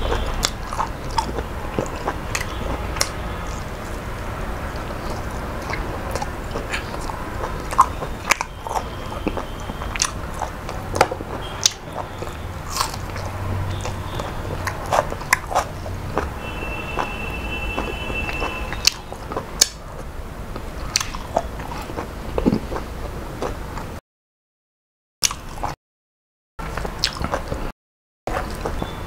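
A person chewing and biting mouthfuls of food close to the microphone, with many short sharp clicks. Near the end the sound cuts out completely several times, for about a second each.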